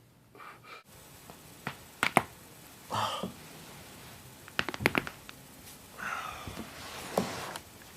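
Joints popping during a chiropractic neck or back adjustment. There are sharp cracks about two seconds in, a quick cluster of pops around five seconds, and another near the end, with short stretches of soft hiss between them.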